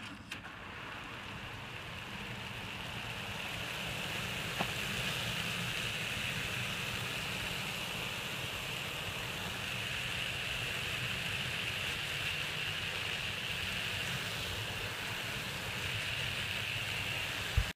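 Garden hose spraying water onto an artificial-turf dog toilet pad, flushing it down its central drain: a steady hiss of water spray that builds over the first few seconds. A few clicks at the start and a single click a little after four seconds.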